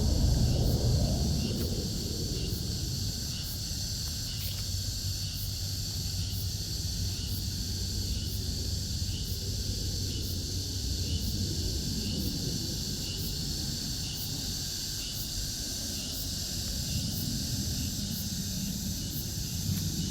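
Steady high-pitched chorus of late-summer insects, with a faint pulse about once a second, over a low rumble.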